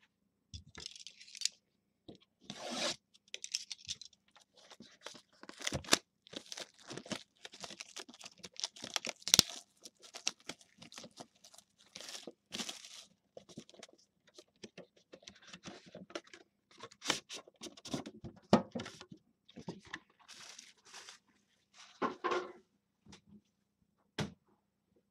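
Plastic shrink wrap being torn and peeled off a sealed trading-card box: irregular crinkling rips and crackles, with sharp snaps now and then.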